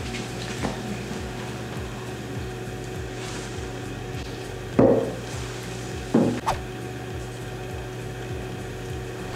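Ceramic coffee mugs set down on a wooden table: one clunk about five seconds in and two more about a second and a half later, over a low steady hum.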